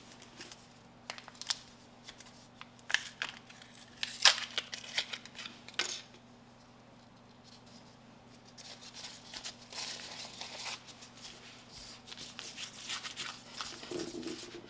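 Sharp crackles and tearing of an alcohol swab packet being opened. After a short pause comes a soft, steady rubbing as the swab wipes over the phone's glass screen.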